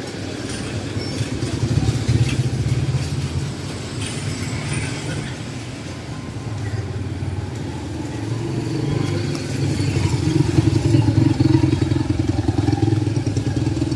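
Steady low mechanical drone with street noise around it, growing louder over the second half.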